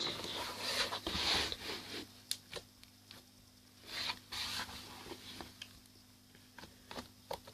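Hands kneading and stretching slime: soft squishing and rubbing, with a few small sticky pops and clicks.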